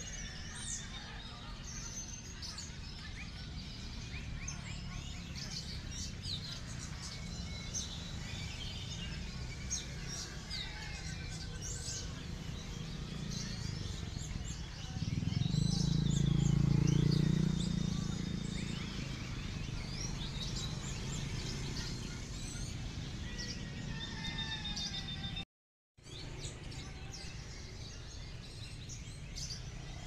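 Many songbirds chirping, trilling and singing over one another, as at a bird-singing contest, over a steady low rumble. The rumble swells louder for about three seconds around the middle, and the sound cuts out completely for half a second near the end.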